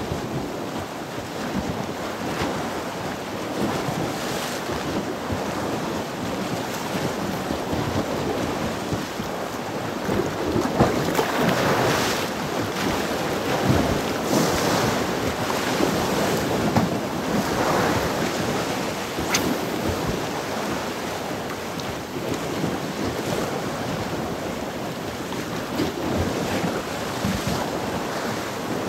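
Choppy sea waves washing in steadily, with wind buffeting the microphone; the surf swells louder around the middle.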